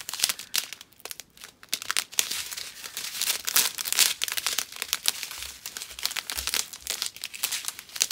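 Clear plastic drill bags crinkling as a strip of them, filled with diamond painting drills, is handled and shifted between the hands. Irregular crackling throughout.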